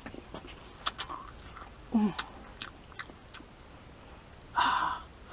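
Close-up mouth sounds of someone eating instant ramen noodle soup: soft chewing clicks and smacks, a short falling hum about two seconds in, and a louder noisy burst near the end.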